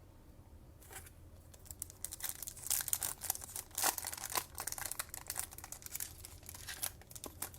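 Foil wrapper of a 2020 Topps Chrome baseball card pack being torn open and crinkled. A dense crackling starts about a second in and goes on to near the end.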